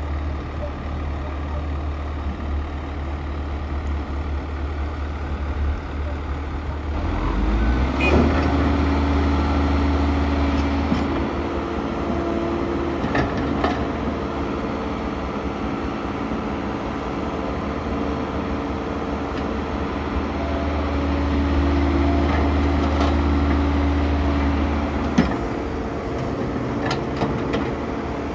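Kobelco SK120-1 hydraulic excavator's diesel engine running, its revs rising about eight seconds in and again just after twenty seconds as it works, with a steady whine above the engine note. A few sharp knocks are heard along the way.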